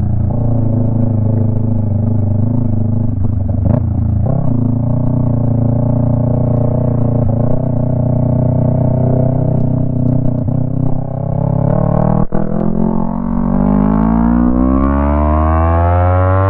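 Yamaha MT-03 with a Jeskap aftermarket exhaust, dB killer removed, running at steady revs with a few brief knocks. About 13 seconds in the engine revs climb steadily under acceleration.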